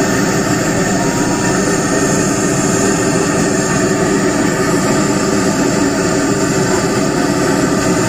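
A large engine running loud and steady, unchanging throughout.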